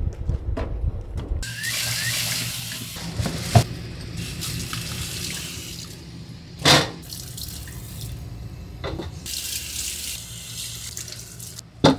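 Tap water running into a sink in spurts as beef marrow bones are rinsed, the flow starting and stopping. Three sharp knocks come in between, the first about three and a half seconds in, the second near the middle and the last at the very end.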